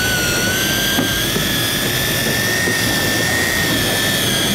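Electric fishing reel's motor whining steadily as it winds line in against a hooked fish, the pitch wavering slightly, over a constant rushing noise.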